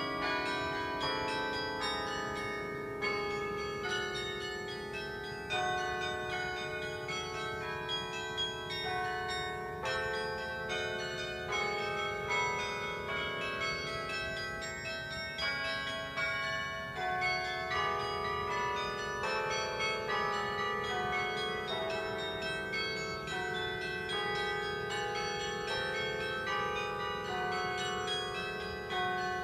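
Carillon bells being played: a continuous tune of struck bell notes and chords, each note ringing on and overlapping the next.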